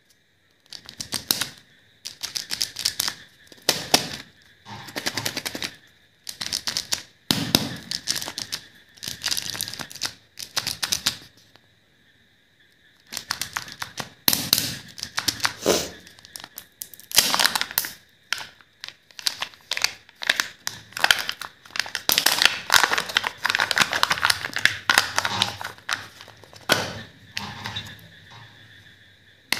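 Plastic foil wrapper of a Kinder Joy egg crinkling and crackling as it is handled and peeled open by hand, in runs of sharp crackles broken by short pauses, with a longer pause of about a second near the middle. Near the end the egg's thin lid seal is peeled off.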